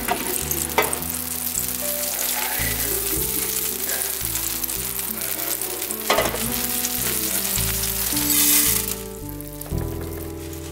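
Hot melted butter sizzling and crackling in a preheated air fryer basket. The sizzle swells for a moment about eight seconds in, then dies down.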